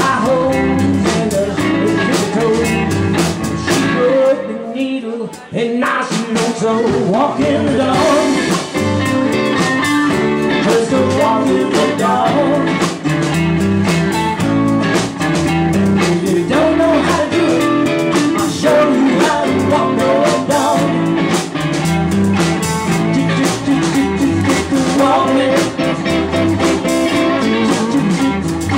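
Live band playing a bluesy rock number with electric bass guitar and drum kit. The band drops out almost completely about four seconds in and kicks back in shortly after six seconds.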